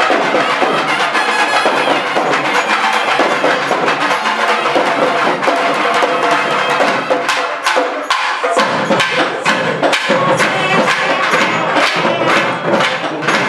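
Live traditional temple festival music: loud, fast drumming under a held melody in the first half, with sharp, quick drum strokes taking over from about halfway through.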